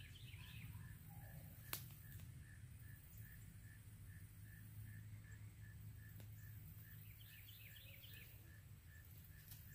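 Near silence: faint outdoor ambience with a soft chirp repeating about three times a second, a single sharp click about two seconds in, and a short run of bird chirps near the end.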